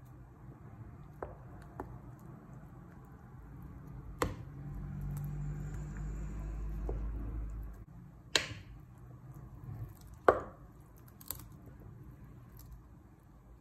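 Silicone spatula stirring thick whole-wheat dosa batter mixed with grated coconut in a ceramic bowl: soft squelching and scraping, with a few sharp knocks of the spatula against the bowl, the loudest about four, eight and ten seconds in. A low hum runs for a few seconds in the middle.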